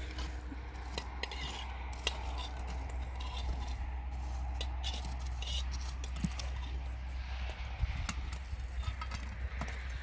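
Scattered light clicks, clinks and scraping of objects being handled, over a steady low rumble.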